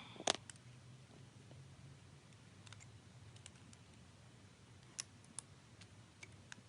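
Faint, scattered small clicks and taps, about half a dozen, with two sharper ones around the five-second mark: small phone parts and tools being handled while fitting a replacement iPhone screen assembly.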